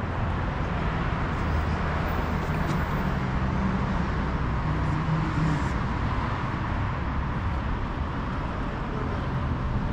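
Steady city street traffic noise: cars running along the road beside the sidewalk, a continuous low rumble and hiss.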